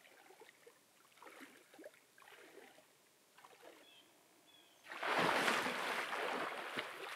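Lake water sloshing softly around a person's legs as he wades out, then a loud splash about five seconds in as he plunges under, with the water churning after it.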